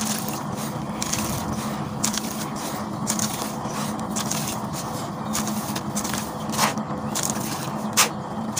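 Dry sand poured into a plastic tub of shallow water: a steady gritty hiss with scattered crackles and a few sharper ticks as the grains land and soak.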